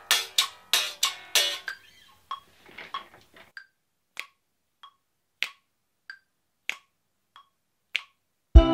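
Electric bass guitar played in short, percussive plucked notes for the first couple of seconds, then finger snaps close to a microphone in a steady beat, one snap about every 0.6 s. Just before the end a full mixed song track starts playing.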